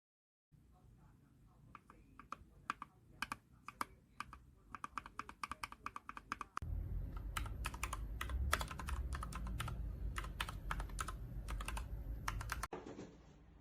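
Typing on a mechanical keyboard fitted with Gateron Milky Yellow Pro linear switches: runs of quick, irregular keystrokes. About six and a half seconds in the sound cuts to a louder stretch of typing with a low rumble underneath.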